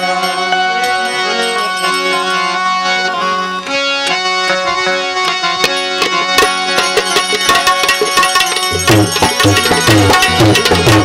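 Instrumental interlude of a Gujarati santvani bhajan: harmonium holding steady notes with tabla accompaniment. The drumming grows busier from about four seconds in, and deep bass strokes of the tabla join about nine seconds in.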